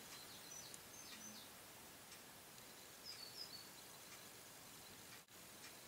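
Near silence: faint room hiss with a few short, faint high chirps about a second in and again about three seconds in, like distant birds. The sound drops out for an instant near the end.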